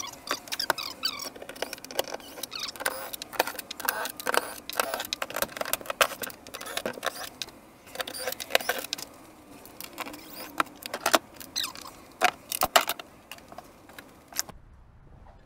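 Irregular clicks, knocks and clatter of hand work on a jet ski's plastic engine cover and its small screws and nuts. The clicks come thick and fast, then stop about a second before the end.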